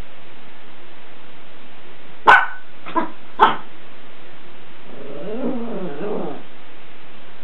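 Miniature pinscher giving three short, sharp alarm barks about two seconds in, then a longer wavering whine-like growl: a small dog nervous of an unfamiliar object.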